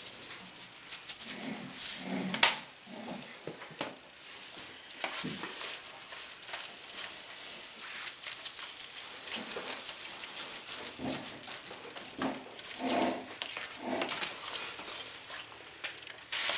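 A white spatula stirring and mashing thick mashed sweet potatoes in a stainless steel pot: irregular soft scrapes and sticky squelches, with one sharp knock against the pot about two and a half seconds in.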